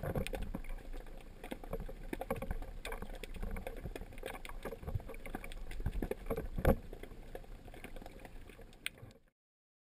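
Underwater sound picked up by a diver's camera: a low rumble with irregular clicks and knocks from water movement and the diver's gear, one sharper knock near seven seconds. It cuts off sharply a little after nine seconds.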